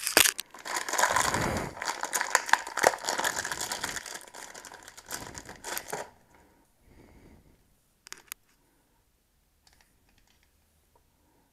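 Plastic packaging bag crinkling and rustling as a wheel is unwrapped from it by hand, dense crackling for about six seconds, then only a few faint clicks of parts being handled.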